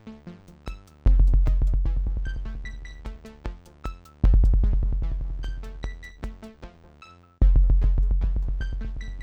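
Live electronic jam on Korg Volca synthesizers and drum machine: rapid clicky drum-machine hits and short high synth blips over a deep bass note that strikes about every three seconds and slowly dies away.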